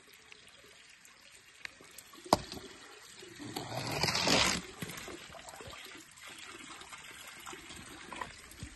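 Water trickling down a wet plastic slide, swelling into a brief splashing rush about four seconds in, with a single sharp click a little before it.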